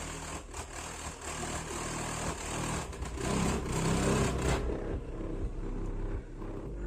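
A Pioneer TS-W309D4 12-inch car subwoofer playing music in a bass test, mostly deep low bass with a faint pulsing beat that thins out after about four and a half seconds.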